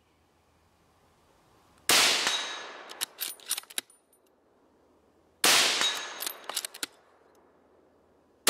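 Steel-core rifle bullets striking a hanging AR500 steel gong: two loud shots about three and a half seconds apart, each ringing out as it fades and followed by a scatter of sharp clicks. A third shot hits right at the end.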